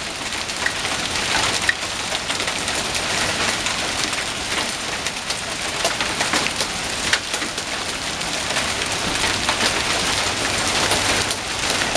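Small hailstones falling with rain, pelting grass and a concrete walkway: a steady hiss dotted with many sharp ticks of stones striking.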